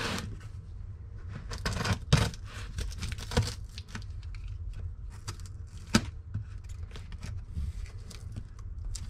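A knife cutting and tearing through thick layers of packing tape on a cardboard box: irregular scraping and ripping, with a few sharper cracks about two, three and a half, and six seconds in.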